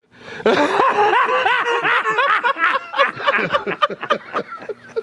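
Men laughing hard: a fast run of rising-and-falling 'ha-ha' bursts that turns choppier and breathier after about three seconds.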